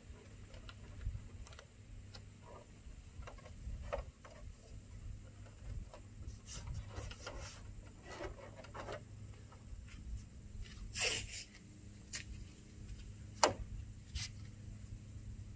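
Hands pressing and smoothing painter's tape onto a truck grille: soft rubbing and rustling with scattered light clicks, a longer rasp about eleven seconds in and a sharp click a couple of seconds later.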